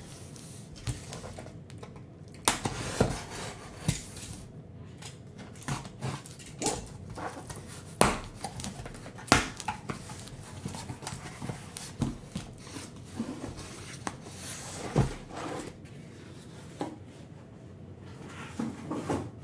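Handling of a cardboard case and the sealed card boxes inside it: scattered knocks and taps as boxes are lifted out and stacked, with brief rustling of cardboard and wrap.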